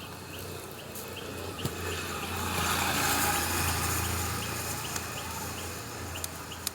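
A motor vehicle passing by, its noise swelling to a peak and then fading over about four seconds.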